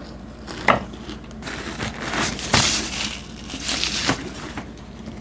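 Crispy chicharon chips crunched while being chewed close to the microphone, a string of irregular crackly bursts.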